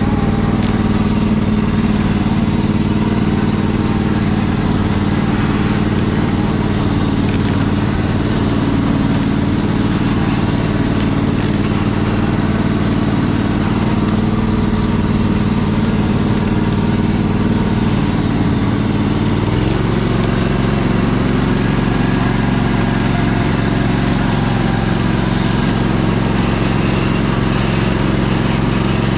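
Riding lawn mower engine running steadily. Its tone changes abruptly about two-thirds of the way through.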